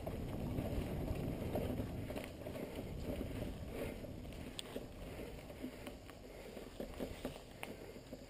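Bicycle rolling over a packed-dirt pump track: a rumble of tyres and wind on the microphone, with scattered clicks and rattles from the bike over the bumps. It grows quieter toward the end.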